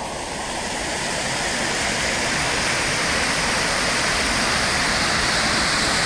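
Waterfall's steady rush of falling water, growing a little louder over the first two seconds and then holding even.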